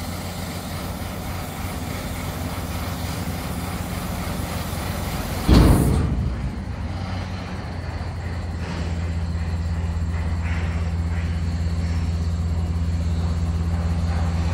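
Compactor garbage truck's engine running steadily at idle, with one loud thump about five and a half seconds in; the engine hum grows a little louder and fuller from about eight and a half seconds.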